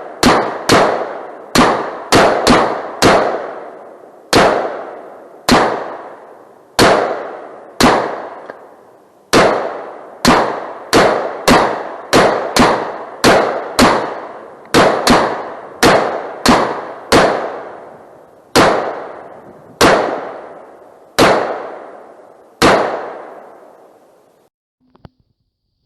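AR-15 rifles firing 5.56 mm green-tip rounds semi-automatically: about thirty shots at an uneven pace, quickest in the middle, each sharp crack trailing off in a long echo. The firing stops a few seconds before the end.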